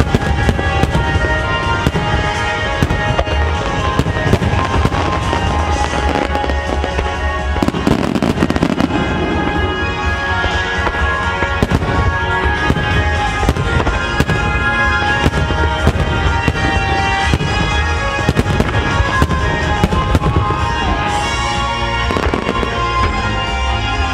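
Starmine firework barrage: many shells bursting in quick succession with crackling, over music played along with the display throughout.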